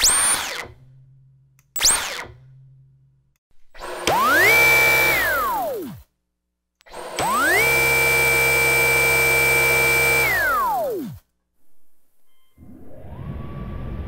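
Dyson cordless stick vacuum's motor switched on and off: two short blips, then two runs whose high whine climbs in pitch, holds steady and winds down in a falling rev-down as the motor spins to a stop. The second run holds for about three seconds.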